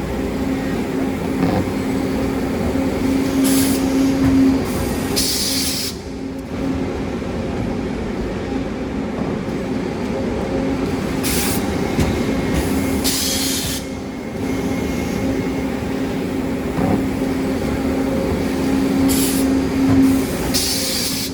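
Double wood-shaving baler running: a steady machine hum with a held low tone, broken about every seven to eight seconds by a pair of short hissing bursts as the baling cycle repeats.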